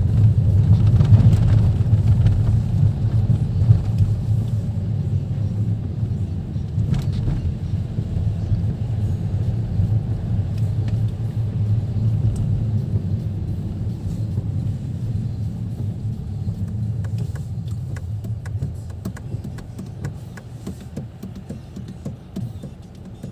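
Car cabin road noise while driving: a steady low rumble of engine and tyres heard from inside the car, getting gradually quieter toward the end.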